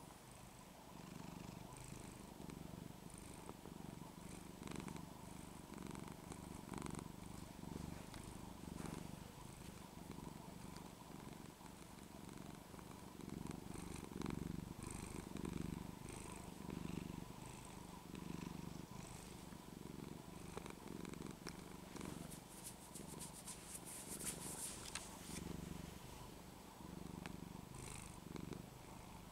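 Domestic tabby cat in a "turbo purr", swelling and fading with each breath about once a second, set off by her neck scruff being shaken and pulled back. A brief rustle about three-quarters through.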